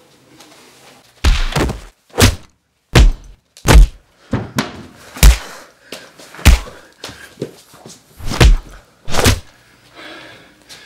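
Heavy thuds of blows in a staged beating with a wooden baseball bat: about ten of them, roughly a second apart, starting about a second in.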